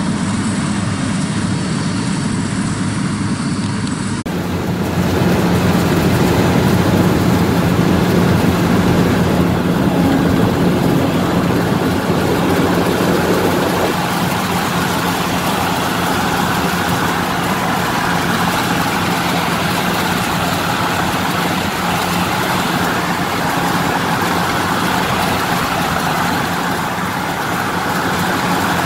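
Rice combine harvester's engine and cutting machinery running steadily as it harvests, a continuous drone. About four seconds in the sound jumps louder and closer, heard from aboard the Yanmar 82 combine.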